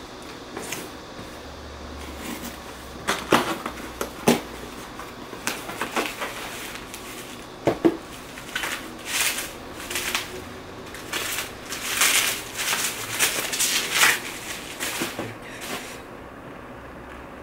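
A cardboard box being unpacked: packing tape slit and the flaps handled with a few sharp knocks, then several seconds of crinkling plastic as a bubble-wrapped package is unwrapped.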